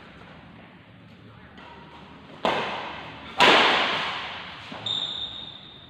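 Two sharp badminton racket strikes on a shuttlecock about a second apart, the second louder, each ringing on in the echo of a large hall. About five seconds in, a brief high-pitched squeak.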